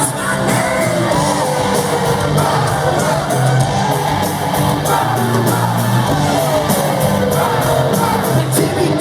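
Loud live rock concert music heard from the audience: a stepping bass line and steady drums, with slow pitch glides sweeping up and down over it, and crowd shouting and whooping.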